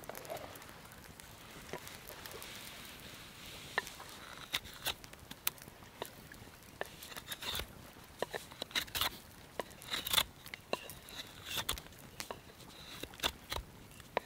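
Knife being sharpened against a hand-held wooden sharpening stick: a run of short, quick scraping strokes, irregular, starting a few seconds in.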